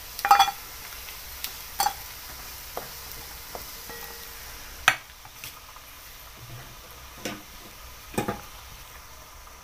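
Hot oil sizzling in a metal kadhai as fried bombil (Bombay duck) pieces are scooped out with a wooden spatula. The spatula knocks sharply against the pan and plate several times. The sizzle thins a little about halfway through, once the pan is emptied.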